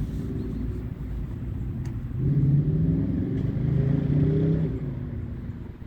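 A car running: steady low engine and road rumble that swells louder about two seconds in and eases off near the end.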